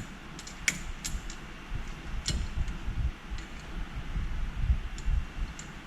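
Scattered light metallic clicks and taps as suspension parts and tools are handled and fitted, over a low steady background rumble.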